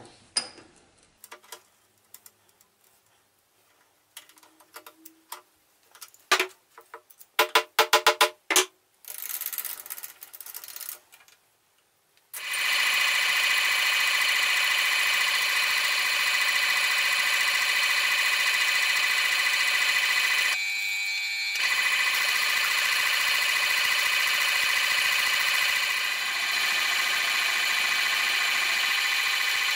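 Light metal clicks and a series of ringing taps as a steel workpiece is set up in the shaper's vise. About twelve seconds in, a metal shaper starts and runs steadily with a whine of many even tones while its ram strokes back and forth, cutting a small steel locating block.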